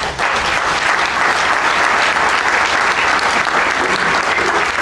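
Audience applauding: a dense, steady round of clapping from a large seated crowd.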